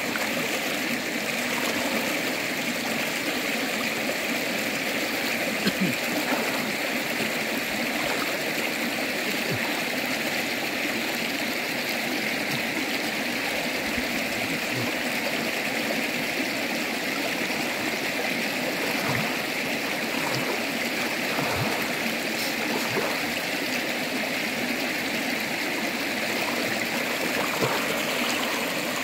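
A shallow, rocky river flowing steadily over stones, with a few small splashes from a person wading and swimming in the pool.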